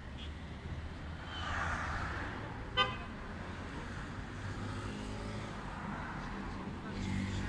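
Street traffic: a low, steady rumble of road vehicles, with a vehicle passing about one and a half seconds in and a single short car horn toot just under three seconds in. A vehicle engine runs nearby through the second half.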